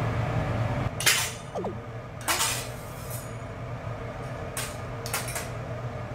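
Metal utensils clattering against dishes or cookware: four short, sharp clatters, the last one doubled, over a steady low hum.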